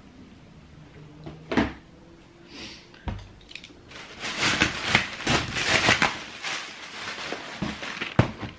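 Trainers and a cardboard shoebox being handled: a knock, a thud, then a couple of seconds of rustling and scraping, and a few sharp knocks near the end.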